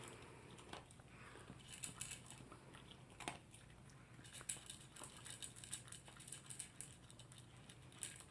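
Faint, irregular small clicks and crunches of a toy poodle eating its dinner.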